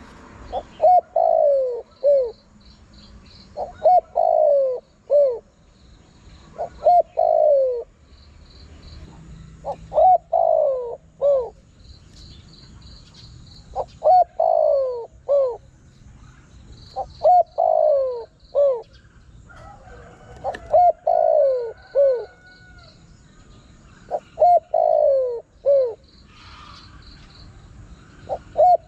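Spotted dove cooing its song over and over, about nine times, once every three to four seconds. Each phrase is a few short coos around one longer, falling coo. Faint high chirping runs behind it.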